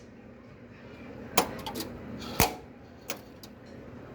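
A handful of sharp mechanical clicks and knocks over a low steady background noise; the two loudest come about a second and a half and two and a half seconds in.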